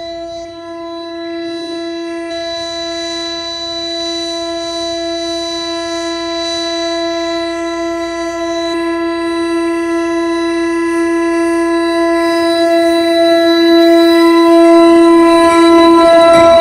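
Train horn held on one long steady note that grows louder throughout.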